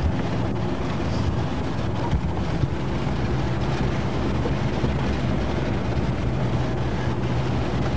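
Car driving along a track, heard from inside the cabin: a steady low engine hum under road and tyre noise.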